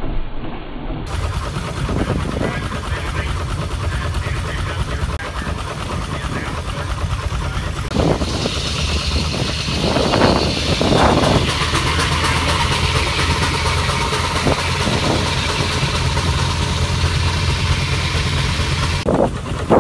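Steam traction engine driving a long flat belt to belt-driven machinery, running with a steady low mechanical drone; a hiss joins about eight seconds in. Voices of onlookers underneath.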